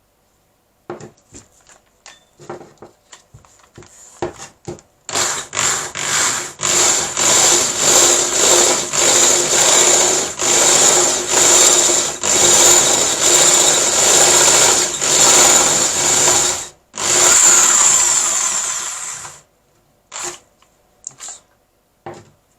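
Old corded drill driving a hole saw through a PVC waste pipe to enlarge an existing hole. It starts with a few short bursts, then runs in loud pulses about two a second with a high motor whine, and finishes with one unbroken run that stops as the cut is completed and the ring of plastic comes free.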